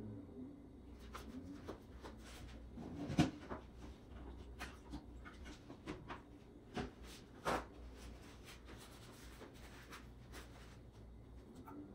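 Scattered light clicks and knocks, the two loudest about three seconds in and about seven and a half seconds in, over a faint low hum.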